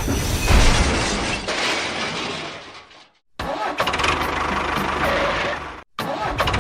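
Small engine running, the sound cut off abruptly twice and starting again each time.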